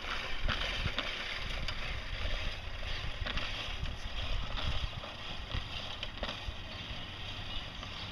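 Wind on the microphone outdoors: a steady low rumble and hiss, with faint scattered clicks.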